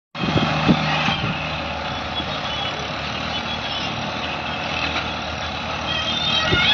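Massey Ferguson 1035 DI tractor's diesel engine running steadily as the tractor drives over dirt, with an excavator's engine running behind it.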